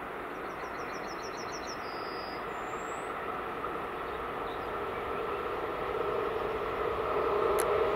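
Freight train hauled by a Czech class 181 electric locomotive approaching, its rumble growing steadily louder, with steady tones coming up about six seconds in. A bird gives a quick run of rising chirps and two short whistles early on.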